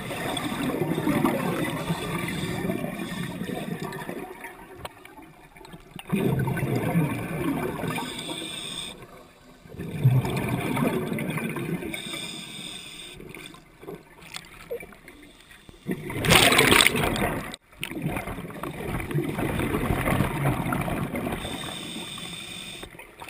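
Scuba diver breathing through a regulator underwater: exhaled bubbles rumble and gurgle in swells every few seconds, with one sharper hiss about two-thirds of the way through.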